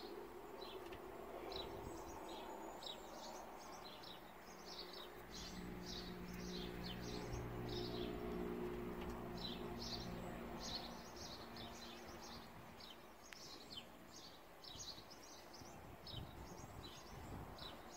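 Small birds chirping and singing in quick, repeated short calls, over faint outdoor background noise. From about five seconds in, a low steady hum rises for several seconds and fades away again.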